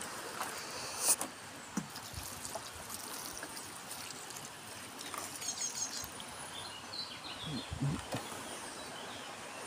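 Outdoor garden ambience: a steady background hiss with a few short bird chirps midway. A couple of dull handling or footstep thuds come near the end.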